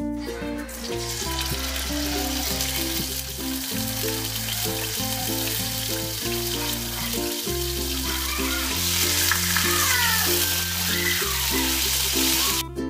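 Duck leg quarters sizzling as they fry in hot vegetable oil in a non-stick skillet. The sizzle grows louder about two-thirds of the way through and cuts off shortly before the end.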